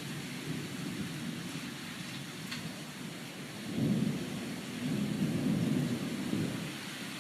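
Steady rain falling as a constant hiss, with thunder rumbling low underneath. The rumble swells about four seconds in and again for a longer roll a second later.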